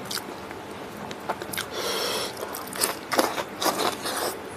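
Eating sounds: wet chewing and lip smacks from a mouthful of boiled mustard leaves and rice eaten by hand. The sounds come as irregular short clicks and smacks, loudest about three seconds in.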